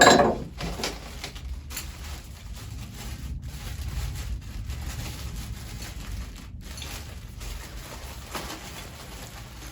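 A sharp knock right at the start that rings out briefly, then continuous rustling and handling noise as packaging and tool parts are unpacked.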